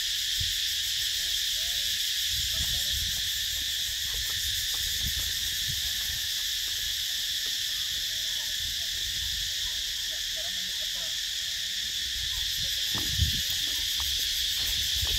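Steady, high-pitched insect chorus droning in the trees, over a low rumble on the microphone, with a single short thump near the end.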